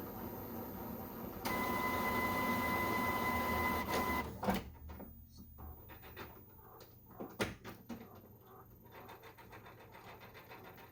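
Epson WorkForce WF-7720 inkjet printer working through its power-up cycle: a motor runs with a steady whine for about three seconds and stops, followed by soft clicks and ticks from the mechanism, with one sharper click midway.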